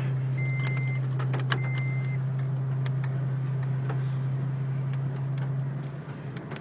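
Vehicle engine running, heard from inside the cab as a steady low drone that eases off about six seconds in. Two long electronic warning chimes sound in the first two seconds, with scattered light ticks throughout.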